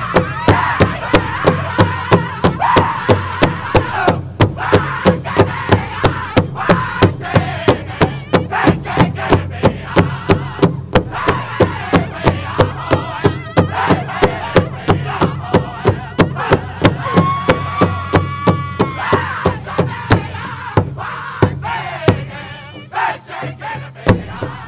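Powwow drum group playing a men's prairie chicken dance song: several men singing in high voices over a steady unison beat on a big drum, a little over two strokes a second. A single high held cry with a wavering tone rings out about two-thirds of the way through, and the drumming thins out near the end.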